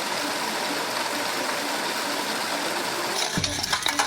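Steady engine-like running noise, broken about three seconds in by a low thump and a run of clicks.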